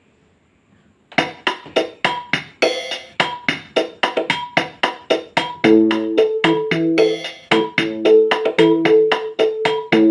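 Casio HT-3000 keyboard starting a built-in rhythm pattern about a second in, a quick steady run of drum and wood-block-like hits. About halfway through, sustained auto-accompaniment chords and a bass line come in over it.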